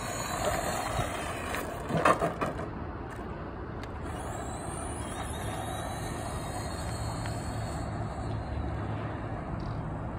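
Radio-controlled trophy truck driving: a steady run with a brief loud clatter about two seconds in, and a high motor whine rising in pitch about four seconds in.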